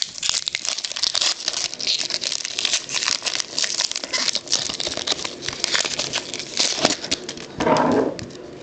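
Trading card pack wrapper being torn open and crinkled by hand, a dense run of crackling and rustling that quietens near the end.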